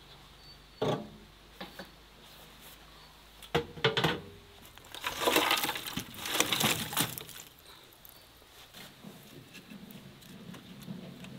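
Charcoal tipped from a metal pan into a steel barrel grill: a few sharp metal knocks, then about two seconds of charcoal pieces clattering and clinking as they pour into the firebox.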